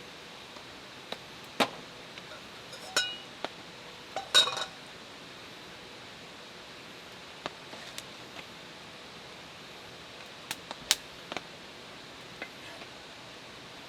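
Cookware and utensils clinking and knocking now and then, a few of the clinks ringing briefly, over a steady soft hiss.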